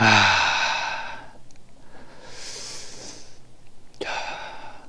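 A man's voice letting out a sigh-like sound that falls in pitch and fades over about a second, followed about two seconds in by a breathy hiss and near the end by another short voiced sound.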